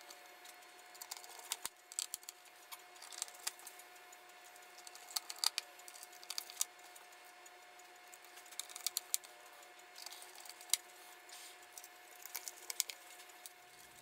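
Small screwdriver driving the screws back into a Dell Inspiron 15 5578 laptop's bottom cover: scattered light clicks and ticks of the bit and screws on the case, coming in small clusters.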